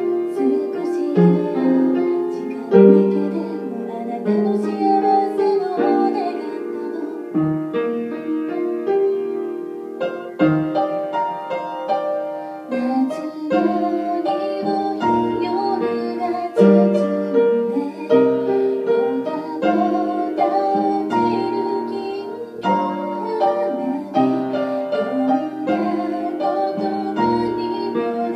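Grand piano played as accompaniment, with a woman singing along in Japanese.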